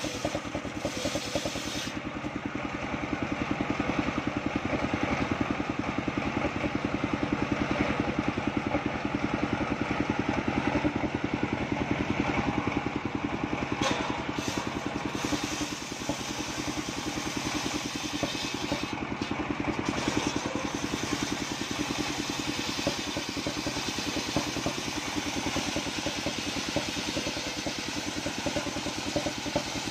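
Engine of a trailer-mounted circular-saw sawmill running steadily while the blade rips lengthwise through a coconut palm log.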